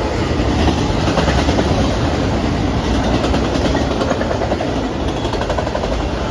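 Norfolk Southern autorack freight cars rolling past close by: a steady rumble of wheels on rail, with rapid clicking as the wheels cross the rail joints.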